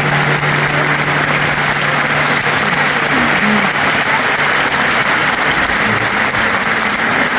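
Large arena audience applauding steadily. The song's last held chord dies away in the first half-second.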